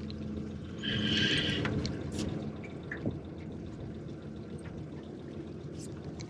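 Water splashing and trickling against a small fishing boat, with a brief louder rush about a second in and a few sharp clicks.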